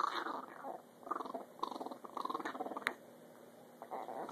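Low, pulsing rumble from a pet, coming in several short bouts of about half a second each.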